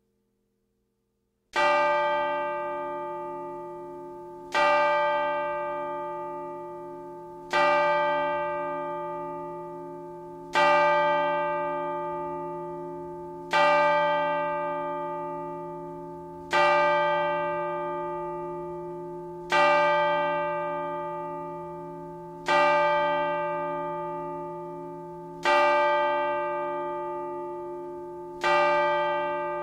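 A single chime bell tolling the hour: ten strikes of the same pitch, one about every three seconds, each ringing on and fading into the next. The first strike comes after a second or so of silence.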